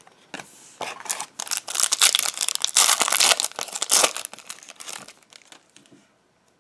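A foil trading-card pack wrapper being torn open and crinkled by hand: dense crackling that starts about half a second in, is loudest in the middle and dies away about five seconds in.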